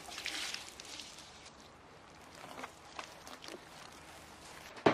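Water from a garden hose spraying and splashing onto a charred wooden board while a hand scrubs it, rinsing off the loose char; it stops about a second and a half in. A few faint knocks follow, and a single sharp thump comes at the very end.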